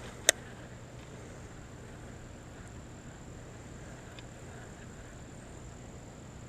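Insects buzzing steadily in one high thin tone over a quiet outdoor background, with a single sharp click a fraction of a second in.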